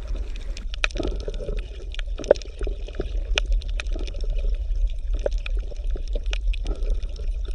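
Water bubbling and gurgling, with many small scattered pops over a steady low hum.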